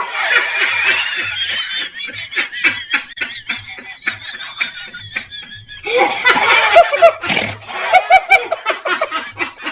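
People laughing hard, in a long run of short breathy pulses, with a louder outburst at the start and another about six seconds in.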